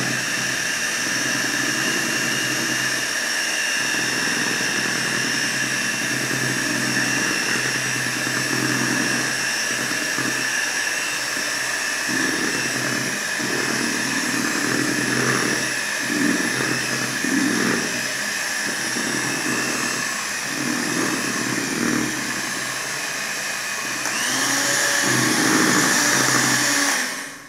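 Philco electric hand mixer running steadily, its beaters churning thick vanilla cake batter of flour and milk in a bowl. It gets a little louder about three-quarters of the way through, then stops abruptly at the end.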